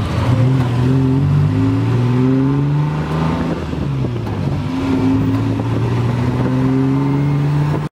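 Tuk-tuk engine pulling the moving vehicle, its pitch rising as it accelerates, easing off and climbing again several times, over road noise in the open cab.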